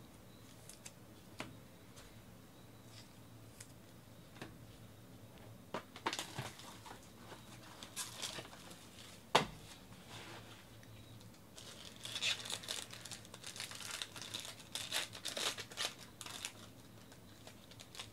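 Foil wrapper of a trading-card pack crinkling and tearing as it is opened by hand. There is one sharp knock about nine seconds in. The densest crinkling comes in the second half, after a quiet start with a few faint clicks.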